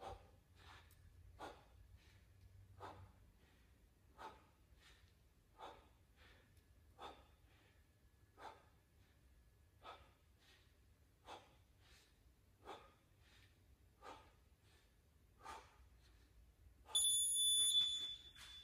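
A person breathing hard and rhythmically while exercising, a short exhale about every 0.7 seconds. Near the end, an electronic timer beeps high for about a second.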